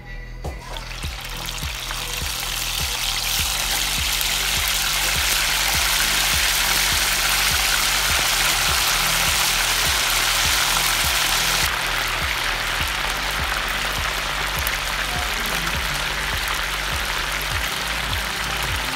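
Marinated chicken pieces deep-frying in a pot of hot oil: a loud, steady sizzle that builds over the first few seconds as the pieces go in, easing a little about twelve seconds in. Background music with a steady beat runs underneath.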